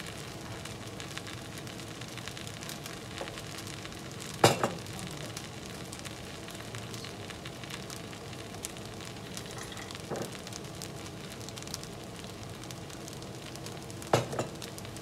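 Rice, fava beans and dill sizzling steadily in a hot pot, with three sharp knocks of a utensil against the pot, the loudest about four and a half seconds in.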